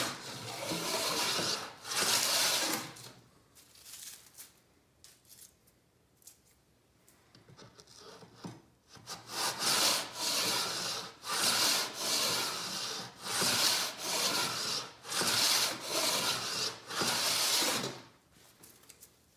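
Record 044 plough plane cutting a quarter-inch groove in a board: rasping strokes of the iron shaving the wood. Two strokes near the start, a lull with faint scrapes and ticks, then a quick run of about ten short strokes.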